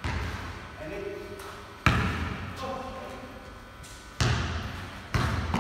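A basketball bouncing on a concrete floor: four sharp thuds at uneven intervals, about two seconds apart at first and then closer together near the end, each ringing on in a long echo through the large garage bay.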